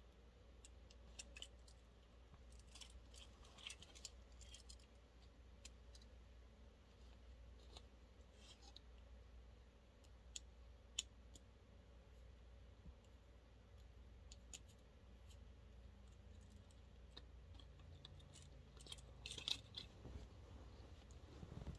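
Near silence with faint, scattered small clicks and taps, a few bunched together about three seconds in and again near the end, over a low steady hum.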